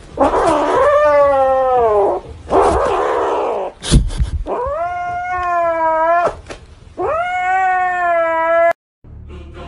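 Kitten yowling: three long drawn-out wailing calls with rough, growl-like stretches between them, as it clutches a plush toy that a hand is tugging at. A short knock comes about four seconds in.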